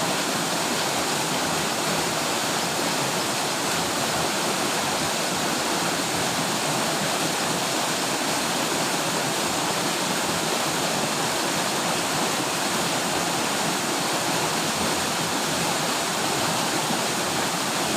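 Rushing water of a mountain river: a steady, unbroken rush.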